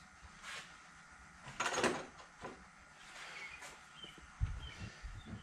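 Quiet workshop handling noises as a screwdriver is fetched and picked up: a brief scraping rustle a little under two seconds in, scattered light clicks, and a dull thump about four and a half seconds in.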